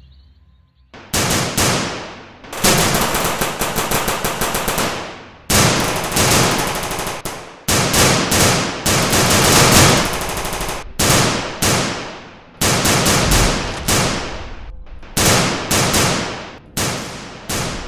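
Gunfire sound effects for a staged firefight: a dozen or so bursts of rapid automatic fire, starting about a second in, each burst trailing off in an echoing tail.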